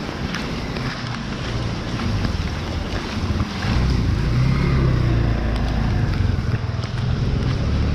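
Steady rain with water hiss and drops ticking, and a motor vehicle passing on the wet road, its low engine rumble and tyre splash swelling about halfway through and easing near the end.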